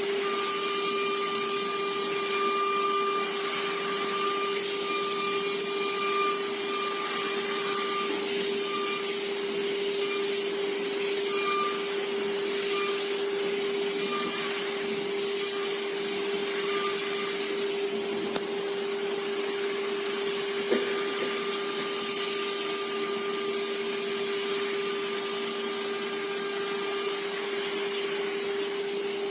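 CNC machine at work: the drill spindle runs steadily with a constant whine and hiss. A higher-pitched motor whine starts and stops as the axes move.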